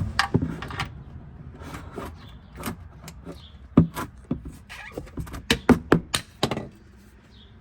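Sharp metal clicks and knocks of a wrench working a loosened oil drain plug under a pickup truck, coming in irregular groups, with the loudest cluster from about five and a half to six and a half seconds in.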